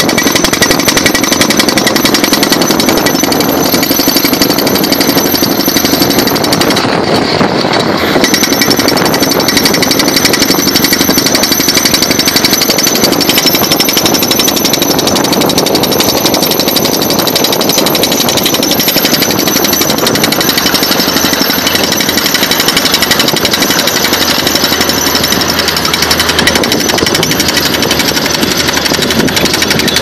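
Tracked hydraulic post pile driver's hammer pounding a steel post into the ground with a loud, continuous stream of rapid blows.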